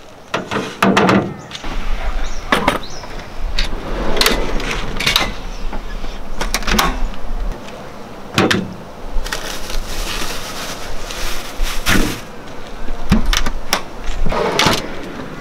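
Camp-kitchen gear being handled: irregular knocks and clatter as a frying pan is handled and the lid of an Engel portable fridge is opened, with a short rustle of packaging about nine seconds in.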